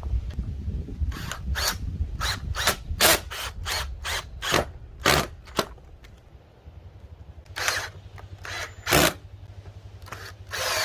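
Workshop tool noise: a series of short, sharp mechanical bursts at irregular spacing, with a low rumble at the start.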